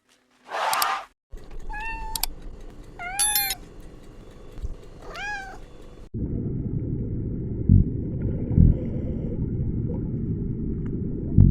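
Domestic cat meowing: three rising-and-falling meows over about three seconds, after a short burst of sound at the start. About halfway through this gives way to a steady low rumbling noise with a few soft thumps.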